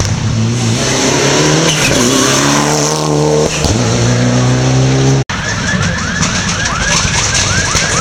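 Rally car engine pulling hard, its pitch climbing and dropping back at a gear change about three and a half seconds in. After a brief dropout about five seconds in, a siren wails in quick rising sweeps, about two or three a second, from the approaching course-opening 00 car.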